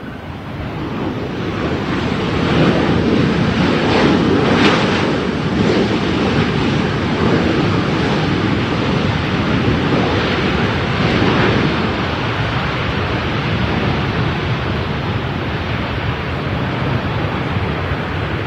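Jet engine roar of a Boeing 737 landing, building over the first few seconds as it passes close by, loudest about four to five seconds in, then holding and slowly fading.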